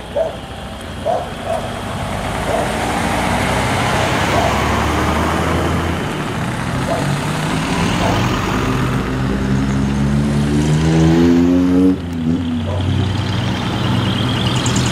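Decorated trucks driving past one after another, their engines running with tyre and road noise. About two-thirds of the way through, one engine's note climbs steadily as it accelerates, then cuts off sharply as the throttle is lifted.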